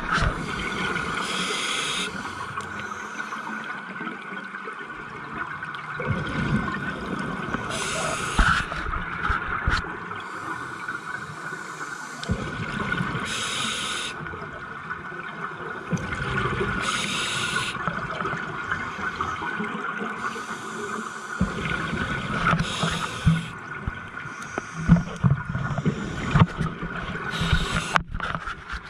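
Scuba diver breathing through a regulator underwater: about every five or six seconds a short hiss of inhalation, followed by a low gurgling rumble of exhaled bubbles. A steady faint whine runs underneath.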